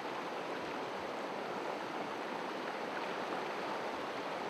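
Whitewater rapids rushing steadily, an unbroken wash of river noise.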